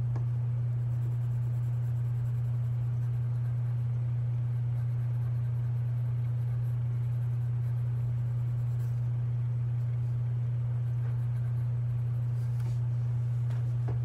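A steady low hum, with the faint scratch of a colored pencil shading on paper.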